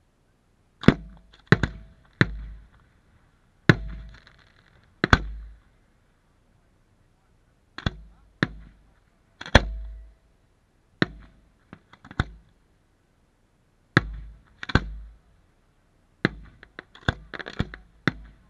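Aerial firework shells bursting in a series of sharp bangs at irregular intervals, each trailing off in a short echo, with a quicker run of reports near the end.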